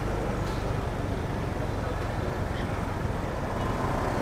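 Steady city road traffic noise.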